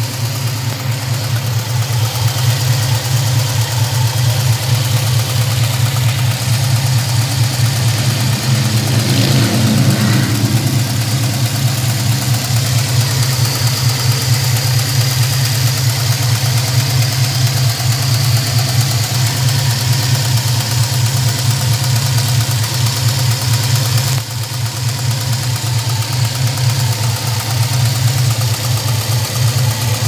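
A 1993 GM LT1 5.7-litre small-block V8 idling steadily, with a lifter tick that the owner put down to running thin 5W-30 oil.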